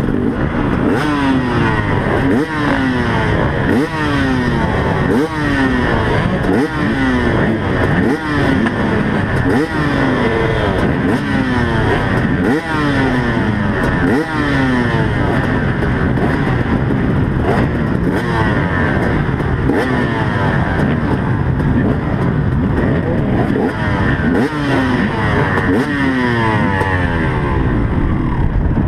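Off-road motorcycle engine revving hard over and over, its pitch climbing and falling back about once every second or so, as the bike accelerates and shuts off through the course.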